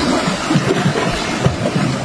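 Sea water sloshing and lapping against shoreline rocks close to the microphone: a steady wash of noise with irregular low splashes.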